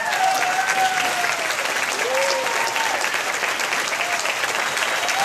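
Audience applauding, with voices whooping and calling out over the clapping.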